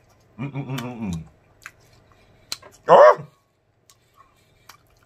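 A man chewing a mouthful of food with wet lip-smacking clicks, letting out a pleased 'mmm' hum with his mouth closed about half a second in, and a shorter, louder one about three seconds in.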